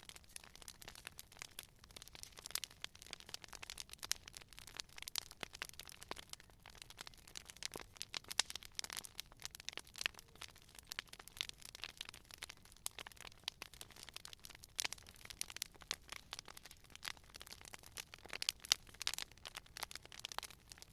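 Campfire crackling, with dense, irregular sharp pops and snaps.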